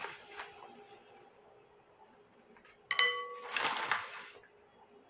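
A cup clinks against the bowl with a short ringing note about three seconds in, then a cupful of dry flaked corn meal (flocão) pours into the bowl with a rustling hiss for about a second.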